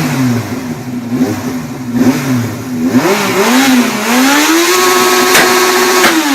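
Motorcycle engine revved in quick throttle blips about once a second, then one longer rev that climbs, holds high for about a second and a half, and drops back near the end.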